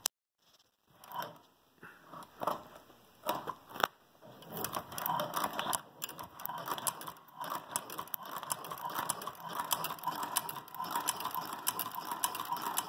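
Hand-cranked Chinese cobbler's sewing machine stitching through heavy canvas, its needle and mechanism clicking and clattering. It goes in a few separate strokes at first, then settles into steady fast clicking from about four seconds in.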